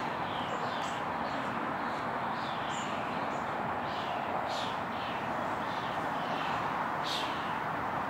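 Steady hum of distant city traffic, with birds chirping over it in short falling chirps every half second or so.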